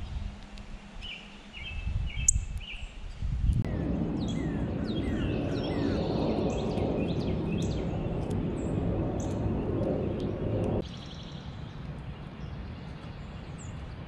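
Wild birds chirping in short, high calls over outdoor background noise, with a louder steady low rumble through the middle that stops suddenly.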